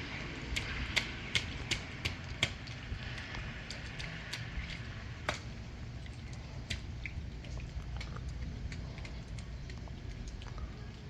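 Raindrops tapping and dripping in irregular sharp ticks, thicker in the first couple of seconds and sparser after, over a steady low rumble.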